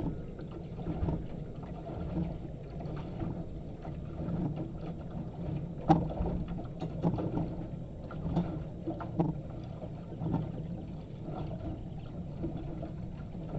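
Water lapping and slapping against the hull of a slow-moving boat, with scattered small knocks and one sharper knock about six seconds in.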